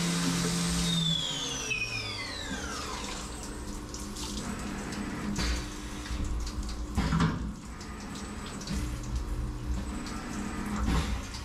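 CNC vertical mill finishing a cut, then its spindle spinning down about a second in, a high whine falling steeply in pitch. Flood coolant splashes and drips inside the enclosure, with a few clunks as the machine moves the head to the tool changer and swaps tools.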